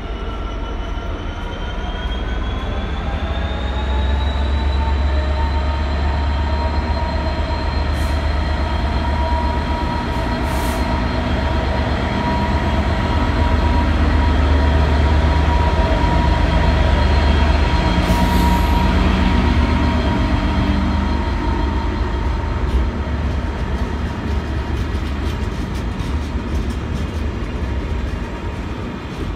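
Freightliner Class 66 diesel-electric locomotive, with its EMD two-stroke V12 engine, working hard as it hauls a container freight train past. Its engine note rises over the first few seconds and then holds steady over a deep rumble that is loudest as the cab passes, with the container wagons rolling by on the rails near the end.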